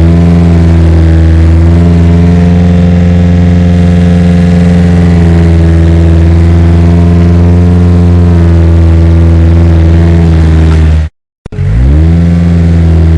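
Loud heavy engine sound that starts with a quick rise in pitch, then runs steadily at one low pitch. About eleven seconds in it cuts off abruptly and restarts a moment later with the same rising start, like a looped recording.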